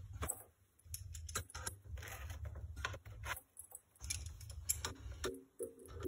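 Handling noise of oxy-fuel torch hoses and their brass fittings: scattered light clicks and metallic clinks, with a pliers wrench picked up off the bench. A low rumble comes and goes underneath.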